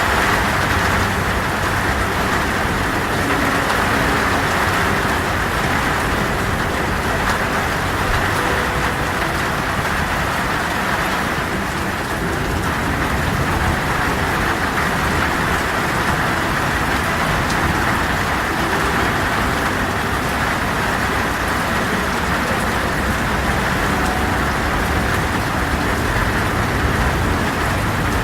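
Heavy rain falling steadily, an even dense hiss with a low rumble underneath.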